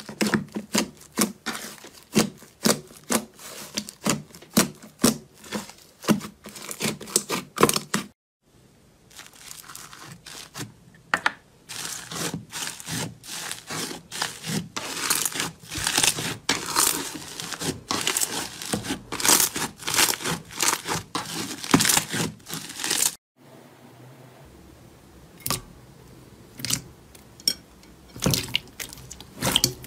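Hands squishing, pulling and pressing thick slime: a dense, irregular run of sticky crackles, clicks and small pops. The sound breaks off briefly twice as one slime gives way to another.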